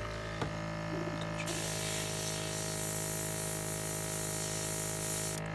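A small motor hums steadily, and about a second and a half in a hiss of blowing air starts, cutting off sharply near the end.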